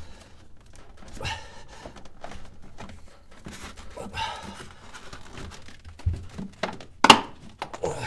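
Plastic knocks, clicks and scraping as a refrigerator's plastic thermostat and lamp housing is pushed and worked into place against the compartment ceiling, its tabs not going in easily. A dull thump comes about six seconds in and a sharp plastic clack, the loudest sound, about a second later.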